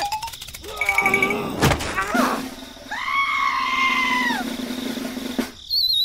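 Cartoon-style sound effects: a few short squeaky pitched calls and a knock, then a long held call over a low hum. Near the end comes a wavering whistle that slides down in pitch.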